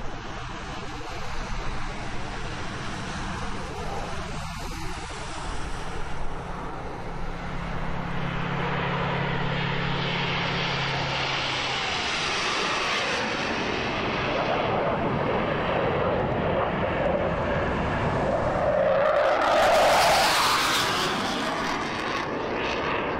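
Four Blue Angels F/A-18 Hornet jets flying past in close formation, their twin turbofan engines making a steady jet roar that builds gradually and is loudest about twenty seconds in, then eases a little.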